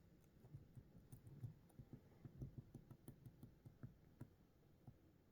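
Near silence with many faint, irregular clicks, a few a second.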